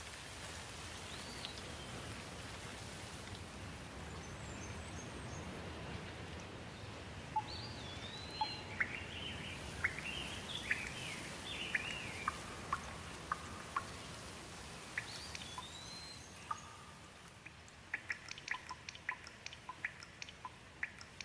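Steady rain with birds calling through it: a few swooping whistled calls and a run of quick chirps in the middle. The rain thins near the end, where a fast series of short, sharp ticks comes in.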